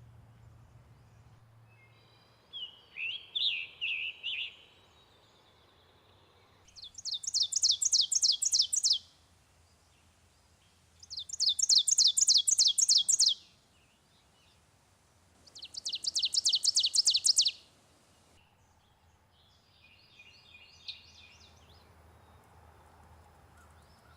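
Wild birds singing: three loud songs, each about two seconds of rapid, repeated downward-sweeping notes, with a softer, lower song before them and a faint one near the end.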